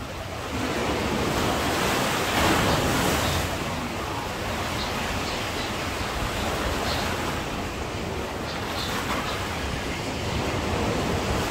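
Sea surf breaking and washing on a beach, a steady rush of water that swells about a second in and again near the end.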